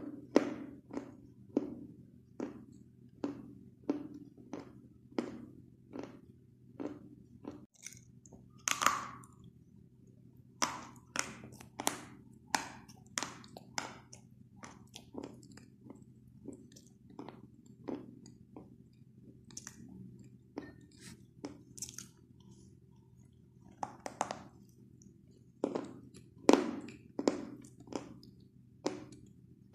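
Close-up chewing of white chalk: crisp crunches as the sticks break between the teeth, in a steady chewing rhythm of about two a second, some crunches louder than others.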